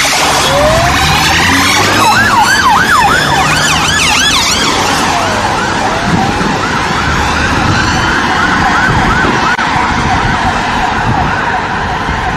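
Several emergency vehicle sirens sounding at once, overlapping wails and fast yelps at different rates. They thin out after about five seconds into a fainter repeating siren that fades toward the end over a steady traffic rumble.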